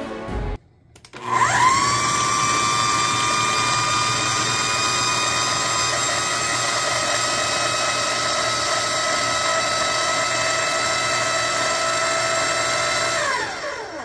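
Food processor motor chopping strawberries and sugar into a purée. It spins up with a rising whine about a second in, runs steadily, then winds down with a falling pitch near the end.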